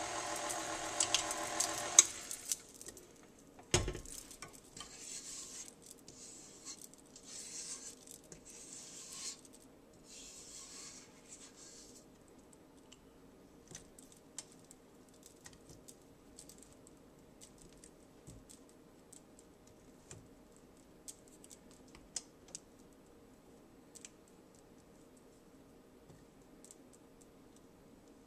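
KitchenAid stand mixer's motor running with the paddle beating peanut butter dough, switched off about two seconds in. A sharp knock follows, then a rubber spatula scraping dough off the paddle beater and bowl in soft rasps and faint taps.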